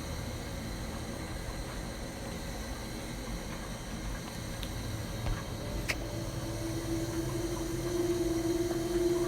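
Steady background hiss and low hum, with a faint steady tone coming in about seven seconds in and a single faint click near six seconds.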